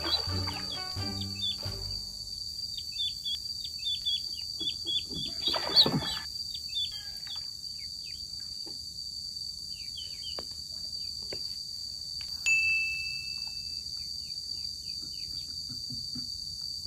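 Ducklings peeping in runs of short, falling high chirps over a steady high insect drone. A short loud rush of noise, the loudest moment, comes about six seconds in.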